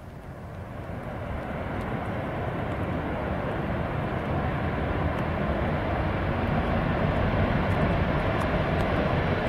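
Boeing 737-800's CFM56 jet engines on the landing roll on a wet runway, a broad rushing noise that grows steadily louder.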